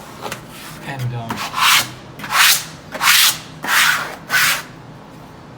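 Five rubbing strokes against wallpaper on a wall, about one every 0.7 seconds, starting a second and a half in.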